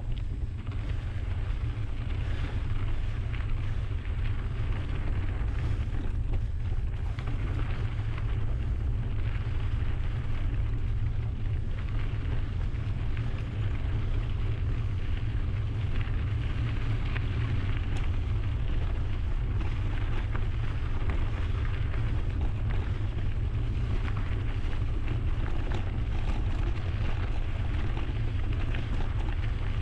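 Wind buffeting the microphone of a bike-mounted action camera while riding: a steady low rumble, with tyre and bike rattle noise over it.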